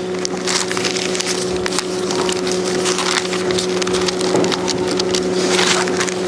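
Thin Bible pages being leafed through and rustling, a dense run of small crackles and crinkles, over a steady electrical hum.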